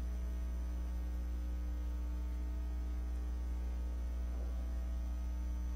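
Steady electrical mains hum, a low buzz with a stack of even overtones, with nothing else heard over it.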